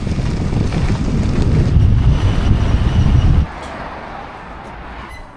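Strong wind buffeting the microphone in a loud low rumble. It drops off suddenly about three and a half seconds in, leaving a quieter steady hiss.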